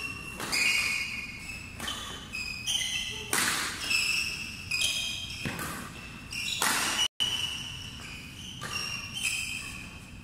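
Badminton doubles rally: rackets striking the shuttlecock about once a second, with short high squeaks of court shoes on the floor between the hits.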